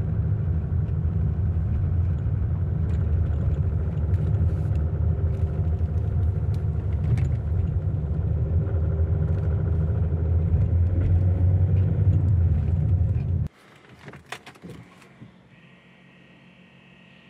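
Citroën C6's 2.7 V6 HDi diesel engine (UHZ DT17TED4) idling steadily with a faint, irregular ticking, the subtle injection knock that the owner thinks could come from a slightly sticking injector. The engine sound stops abruptly about 13 seconds in, leaving a few clicks and a faint steady hum.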